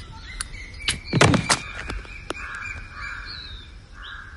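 A few sharp clicks and a loud dull thunk about a second in, then crows cawing several times.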